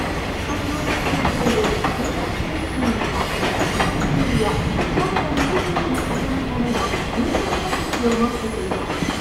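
Container freight train's wagons passing at speed, their wheels rumbling and clattering over the rail joints in a steady stream of rapid clicks.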